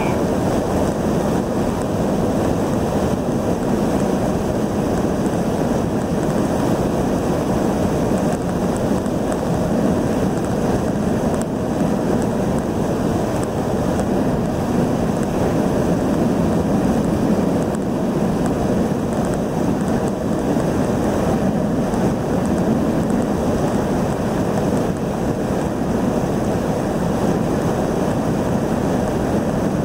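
Steady road, engine and wind noise from inside a car cruising at highway speed.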